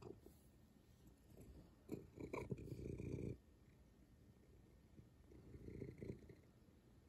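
Cat purring in uneven bouts while being stroked, loudest from about two to three and a half seconds in.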